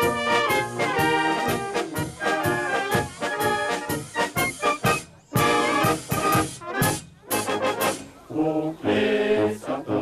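Brass band music, trumpets and trombones playing, with short breaks about halfway through and a softer passage near the end.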